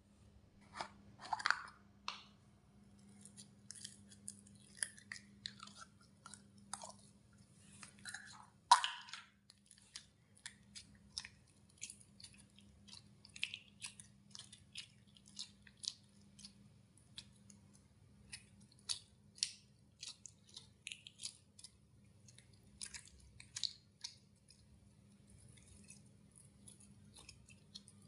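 Slime being squeezed and worked, making irregular sticky pops and clicks, with louder squelches about a second and a half in and about nine seconds in, over a faint steady low hum.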